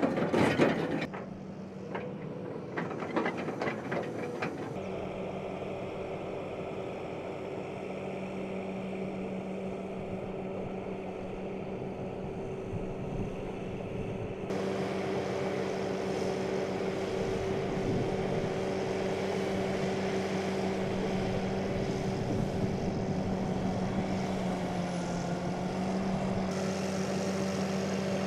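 Heavy vehicle's engine running steadily at a low, even hum, its note dipping briefly near the end. A few loud knocks and some clatter come in the first four seconds.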